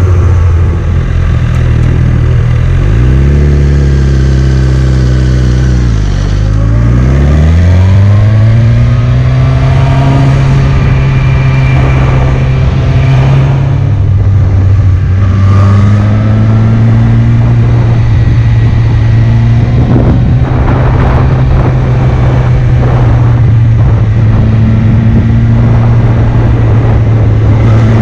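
Sport motorcycle engine heard from the rider's position under a steady rush of wind and road noise. Its pitch rises about three seconds in, drops near six seconds, climbs again, then holds fairly steady while cruising.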